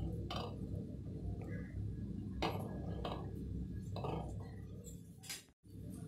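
Faint taps and clinks against a glass bowl as a slice of bread is pressed and turned in egg batter, over a low steady hum; the sound cuts out briefly near the end.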